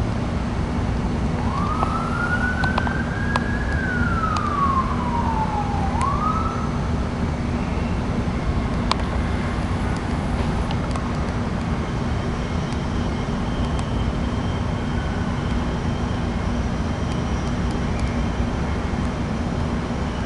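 Steady low hum and rush of an air conditioner unit running. A siren is heard in the distance about a second in, rising, then falling slowly and rising again, and fades out after about five seconds.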